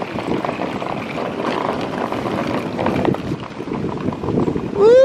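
Rolling suitcase wheels rumbling and clattering over asphalt. Near the end a person lets out a loud, drawn-out shout that rises, holds and falls in pitch.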